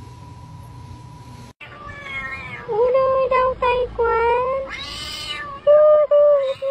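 A faint steady high tone cuts off about a second and a half in. Then a cat meows several times in a row, drawn-out bending meows with a short noisy burst midway.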